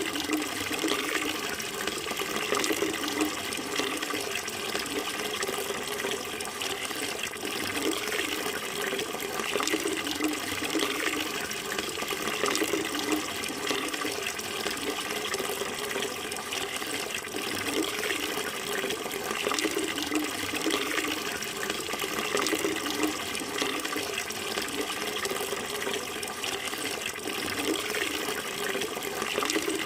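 Running water flowing steadily, a continuous rush and splash with no pauses.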